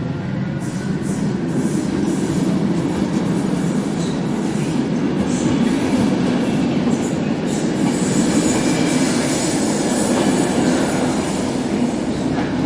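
Train moving along the rails: a steady, loud rumble with intermittent high-pitched wheel squeal.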